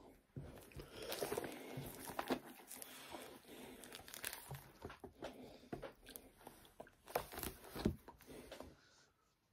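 Close rustling, crinkling and soft knocks of hands handling an old leather-bound book near the microphone, with many sharp clicks along the way, dying down near the end.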